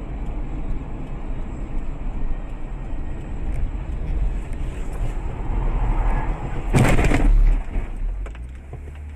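Car interior through a dashcam: a steady low road and engine rumble, then about seven seconds in a single loud crash lasting under a second as the car loses control and strikes something.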